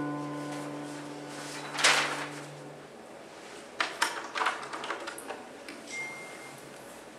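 The held low notes of the accompanying music fade out. About two seconds in there is a short rustling swish, and around four to five seconds in a few sharp clicks and knocks of handling noise on stage.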